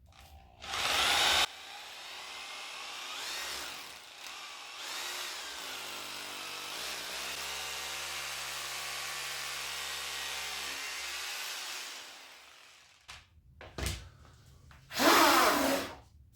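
Regular (non-hammer) electric drill boring a hole into a concrete floor for a Tapcon concrete screw: a short loud burst, then about ten seconds of steady drilling, and another short loud burst near the end.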